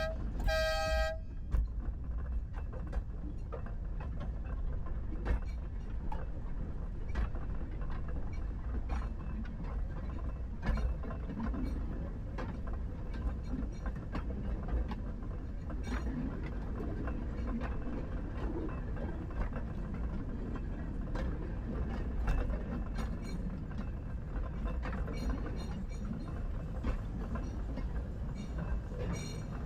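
Narrow gauge train horn toots briefly right at the start and again about half a second in. Then the train runs on with a steady low rumble and scattered irregular clicks and clanks from the wheels and track.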